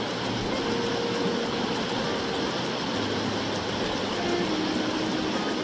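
Shallow mountain river running over rocks and stones: a steady rush of flowing water.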